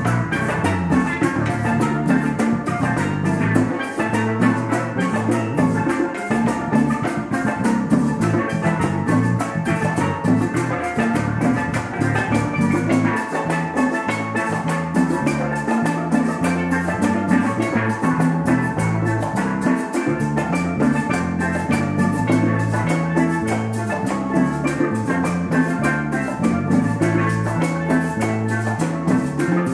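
Live worship band playing upbeat, fast music: a drum kit with steady rapid strokes, a bass line stepping between notes, and bright melodic instruments on top.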